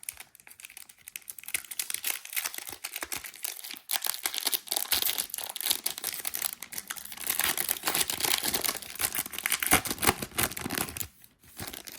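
Trading card pack wrapper crinkling and tearing as a pack is opened and handled: dense crackling, louder in the second half, which dies away shortly before the end.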